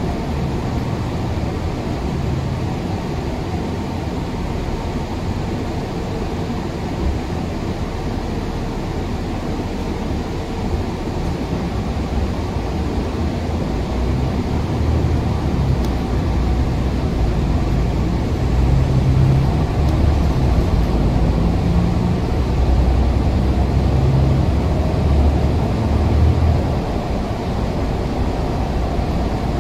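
City bus engine and road noise heard from inside the passenger cabin while riding: a steady low rumble that grows louder for a stretch in the second half, then eases near the end.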